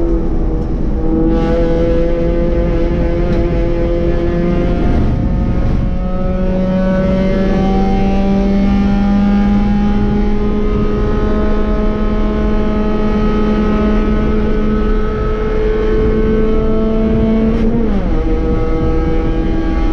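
B-Spec race car's small four-cylinder engine pulling under load, its pitch climbing slowly for many seconds. Near the end the pitch drops suddenly on an upshift, then starts climbing again.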